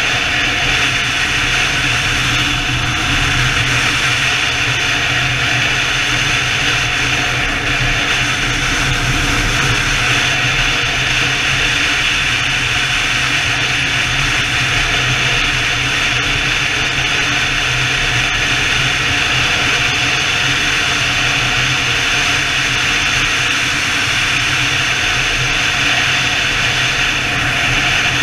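BMW touring motorcycle riding at a steady highway speed: constant engine hum under loud, even wind rush, with no change in pace.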